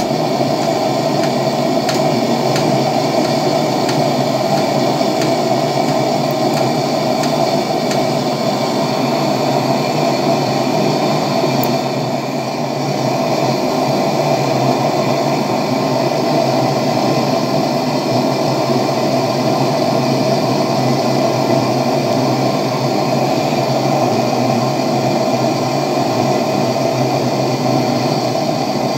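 Petromax Rapid 1500/500 pressure lantern's built-in preheating burner running with a steady, loud hiss, heating the vaporizer before the lamp is lit. The noise dips briefly about twelve seconds in.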